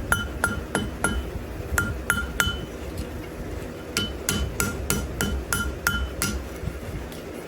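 Hand hammer striking hot wrought iron on an anvil to forge-weld it, each blow giving a bright ringing clink. The blows come in two runs of about three a second, with a pause of about a second and a half between them.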